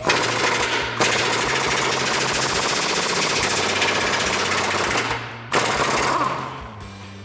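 Pneumatic impact wrench hammering on a control arm bolt, running for about five seconds, stopping briefly, then a second shorter burst that trails off.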